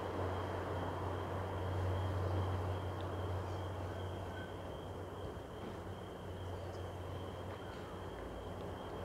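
Red Funnel car ferry Red Eagle's engines giving a low, steady drone over the rush of its wash, with a thin steady high whine above. The drone eases a little about halfway through.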